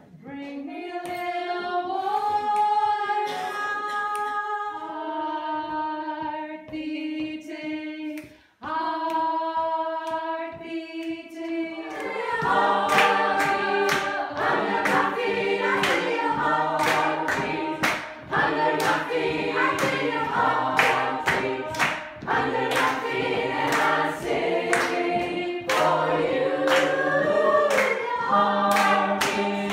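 A small group of voices sings long held notes in a cappella harmony, the chord shifting every couple of seconds, with a short break just before halfway. From about twelve seconds in, a fuller choir sings a cappella over steady rhythmic hand-clapping.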